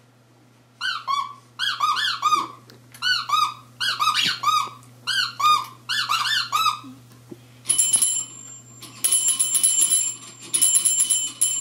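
Toy ride-on fire truck's horn squeaked in short bursts of two or three honks that rise and fall in pitch, about six bursts in all. After that, its bell is rung rapidly in three bursts of high ringing.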